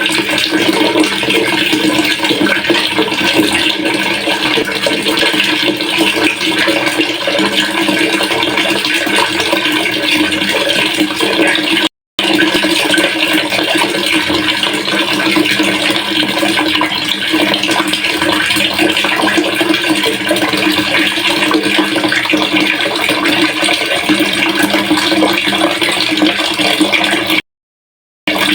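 Water pouring steadily into a pail, a continuous splashing rush with a steady low note. It breaks off twice into brief silence, once about twelve seconds in and once near the end.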